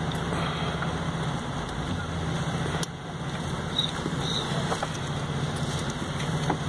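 Steady engine and road noise inside a moving car's cabin, with a low hum. A single sharp click comes about three seconds in.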